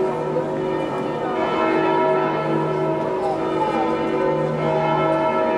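Church bells ringing, several bells overlapping in long, steady ringing tones with new strokes every second or two.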